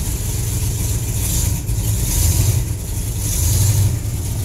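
Ford 360 V8 of a 1974 F-100 pickup running just after catching on starting fluid, having sat unused for a while. A steady low engine note that swells twice, about a second and a half in and again near three and a half seconds.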